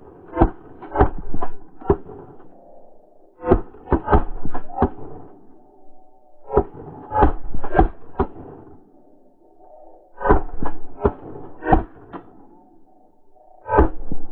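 Duck quacking: series of four to six short, sharp quacks in quick succession, repeated about five times with pauses of a second or two between.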